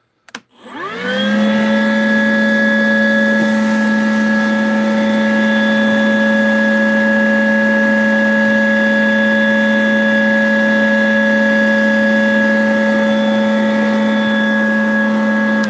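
Makita 18V brushless 2-gallon wet/dry vacuum switched on at setting one, its lowest: a click, then the motor spins up within about a second and runs at a steady whine while the hose picks up fine sanding dust.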